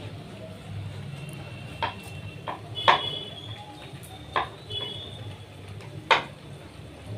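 Steel plates and utensils clinking: about five sharp knocks with a brief metallic ring, the loudest near the middle and about six seconds in, over a low steady hum.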